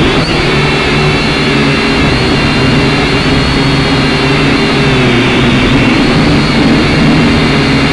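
A small camera drone's motors and propellers come up to speed and then whine steadily with a low buzz as it lifts off the grass and hovers low. The sound is picked up by the drone's own onboard microphone, so the whine is very close and loud.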